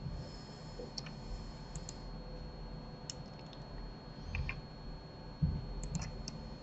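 Scattered computer mouse and keyboard clicks, quiet and irregular, with a low thump about five and a half seconds in.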